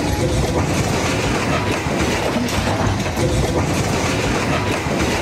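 A train passing close by, its wheels clattering steadily over the rails.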